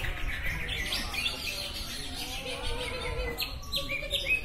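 Caged green leafbirds (cucak ijo) singing over one another: fast runs of chirps and whistled notes, with lower whistles joining in the second half.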